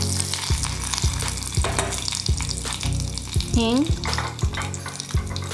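Curry leaves and dry red chillies sizzling in hot ghee in a small steel pan while a tadka is tempered. Background music plays under it.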